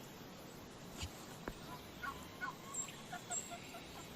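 Turkey calling faintly: a few short clucks between about two and three and a half seconds in, with a couple of light clicks before them.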